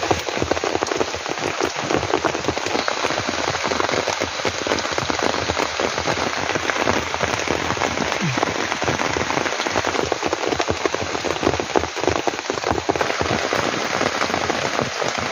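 Heavy rain falling steadily on a tent, a dense patter of drops hitting the fabric without letting up.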